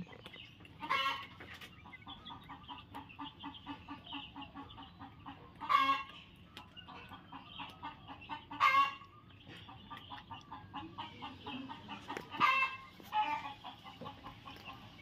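Domestic hens clucking in a steady run of quick, soft notes, with about five louder calls breaking through. The hens are restless, looking for a free nest site to lay.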